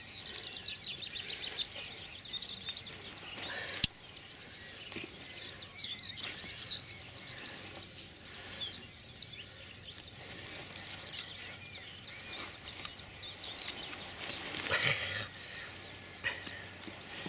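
Outdoor birdsong: several small birds singing, with many quick repeated chirps and trills. A single sharp click about four seconds in and a short burst of rustling noise near the end.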